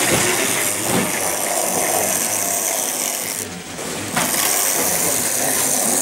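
Electric model trains running on metal track, a steady mechanical clatter of wheels and small motors, dipping briefly about three and a half seconds in.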